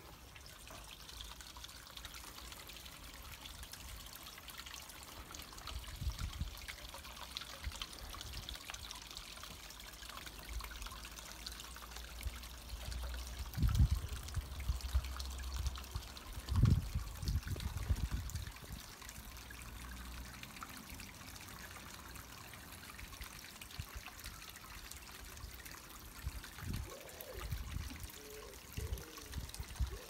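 A steady trickle of running water, like a small garden water feature, with a few low thumps in the middle that are the loudest sounds.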